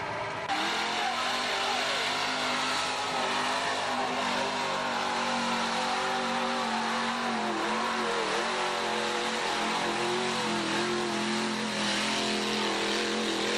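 Lifted mud-bog pickup truck's engine revving hard as it churns through the mud pit, its pitch wavering up and down with the load. It starts suddenly about half a second in.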